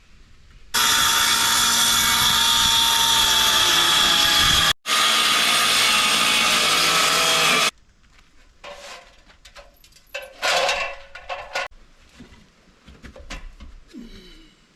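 Power saw cutting through a T1-11 plywood siding panel: a loud steady cut lasting about seven seconds, broken by a brief gap partway through, then it stops. Light knocks and rustling of the board being handled follow.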